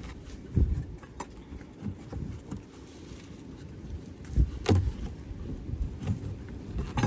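Wind buffeting the microphone, a low rumble that swells and fades, with a few short knocks and clicks as hive frames are handled.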